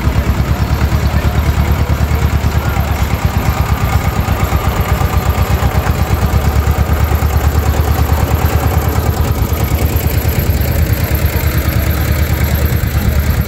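Fiat U25 tractor engine running at low speed while towing a loaded wagon, a steady, rapid beat of firing pulses.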